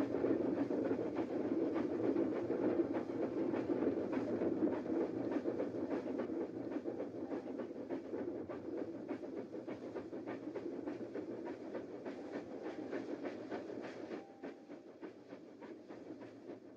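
Dubbed-in steam locomotive sound effect: a steam train running, a steady rush with rapid clatter, dropping in level about fourteen seconds in.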